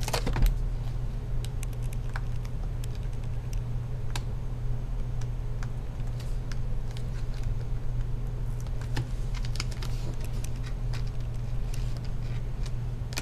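Scattered small plastic clicks and taps from hands handling a laptop LCD panel and seating its video ribbon cable, over a steady low hum.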